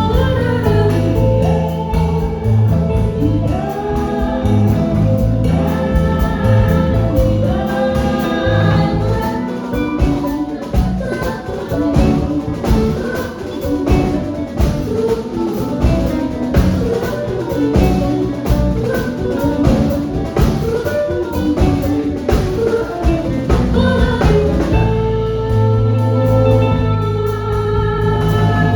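Jazz quintet playing: a singing voice carrying a gliding melody over piano, bass, guitar and drum kit. The drumming gets busier from about ten seconds in, then eases near the end, where sustained low bass notes return.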